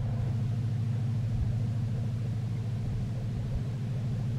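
WDP4D diesel locomotive's EMD two-stroke engine running with a steady low drone.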